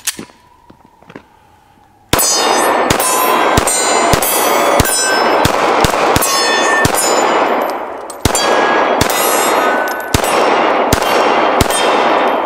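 A 9mm semi-automatic pistol fired in a rapid string of about two to three shots a second, starting about two seconds in, with a short break about eight seconds in. The rounds strike steel plate targets, which ring after the shots.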